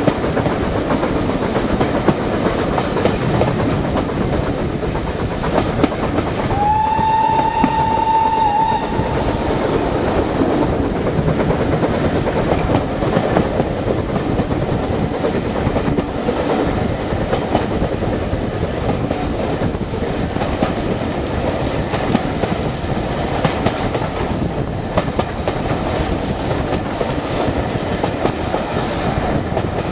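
Steady running noise of a train hauled by two BR Standard Class 9F steam locomotives, heard from an open carriage window as the coach wheels run on the rails. About seven seconds in, a steam locomotive whistle sounds one steady note for about two seconds.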